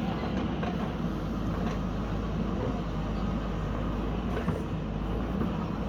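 Backhoe's diesel engine running steadily under work.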